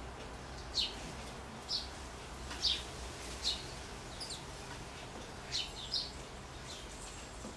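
Eurasian blackbirds calling with a series of short, high chirps, about seven, roughly one a second.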